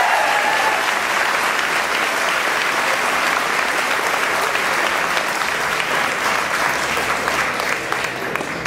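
Audience applauding: a dense, steady patter of many hands clapping, easing slightly near the end.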